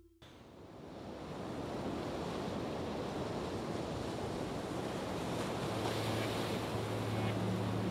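A wind-like rush of noise swells up over the first second or two and then holds steady. A low, steady hum comes in about five and a half seconds in, the start of an outro music bed.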